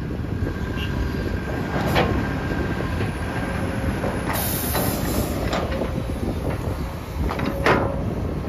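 Sumitomo SH250-6 hydraulic excavator working under load: its diesel engine runs steadily while the bucket dumps soil into a dump truck and swings back to dig. Sharp metallic knocks come about two seconds in and again near the end, with a brief hiss around the middle.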